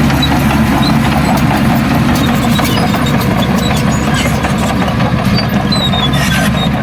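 Heavy earthmoving machine's diesel engine running steadily at a low, even pitch, with scattered light clicks and clanks.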